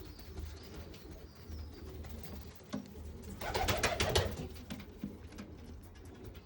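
Domestic pigeons cooing, with a louder noisy burst lasting under a second a little past halfway.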